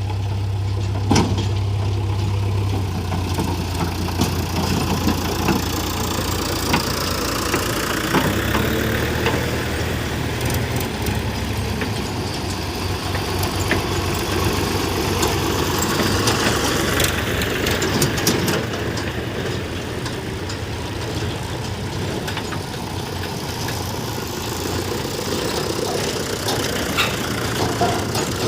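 Diesel engines of heavy machinery running steadily at low revs, the engine note shifting now and then, with occasional sharp knocks over the running.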